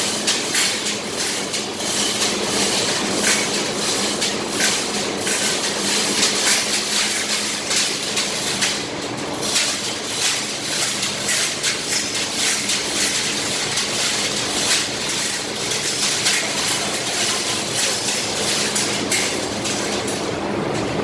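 Frequent metallic clanks and knocks from a steel centrifugal blower housing and scaffold being handled, over a steady machinery hum.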